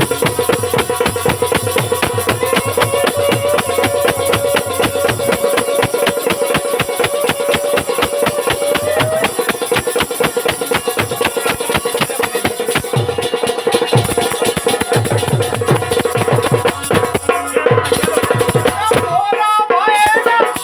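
Rai folk music from Bundelkhand: fast, dense rattling percussion and drums under a steady held tone and a sustained melodic line that rises slightly about nine seconds in, with more melodic movement near the end.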